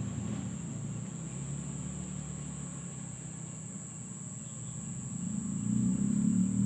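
An insect's steady high-pitched trill, with a low engine hum underneath that grows louder near the end.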